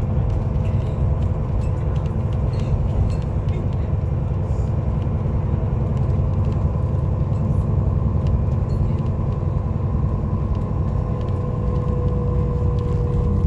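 Steady low rumble of a vehicle driving along the road, with a faint steady hum over it and no sudden events.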